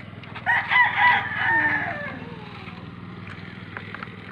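A rooster crowing once, a long call starting about half a second in and trailing off downward around two seconds in, over a steady low hum.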